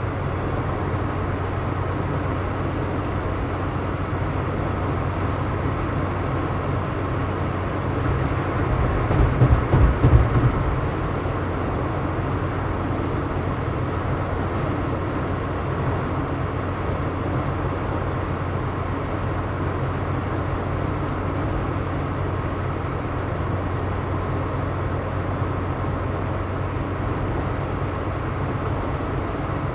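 Steady road and engine noise inside the cabin of a moving mid-size car, with a louder spell of low bumping and rumbling about eight to eleven seconds in.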